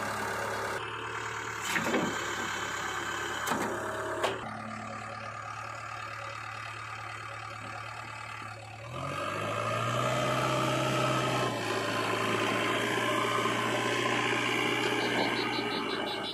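JCB 3DX backhoe loader's diesel engine running steadily, with three sharp knocks in the first few seconds. About nine seconds in, the engine note rises and grows louder as it revs up, and it keeps running at the higher speed.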